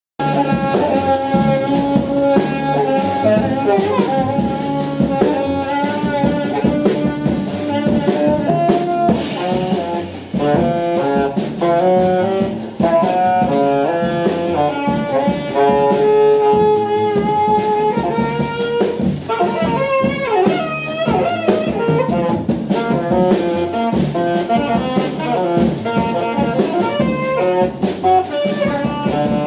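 Piano-less jazz saxophone trio playing: a saxophone plays a melody over a drum kit and low bass notes.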